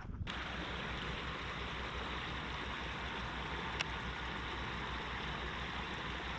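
Steady outdoor background hiss that starts abruptly at a cut and holds level, with a single faint click a little under four seconds in.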